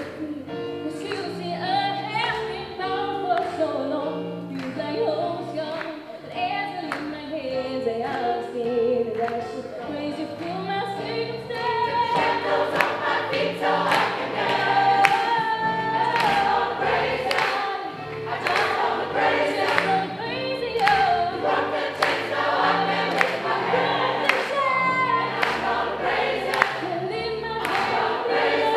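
Gospel choir singing a song in parts. About halfway through, a steady beat of sharp strikes comes in under the voices.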